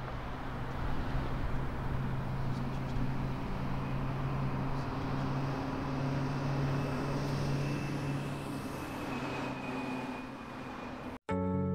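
Street traffic ambience: passing cars with a steady low hum. It cuts off sharply near the end as music with clear piano-like notes begins.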